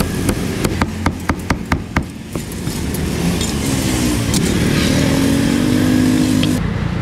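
Steel cleaver chopping grilled pork on a thick wooden chopping block, about four quick chops a second for the first two seconds. Then a motor vehicle engine runs with a pitch that rises and then holds steady for the rest.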